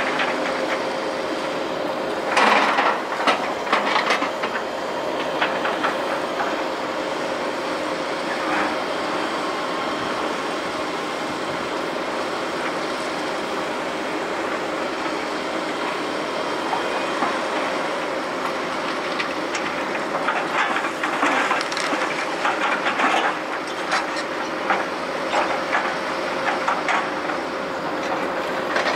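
Heavy diesel demolition equipment running steadily, with bursts of rubble and scrap clattering and crashing as an excavator works the debris pile: once a couple of seconds in and again in a longer spell in the last third.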